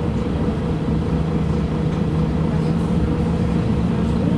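City bus running, heard from inside the passenger cabin: a steady low drone with an even hum.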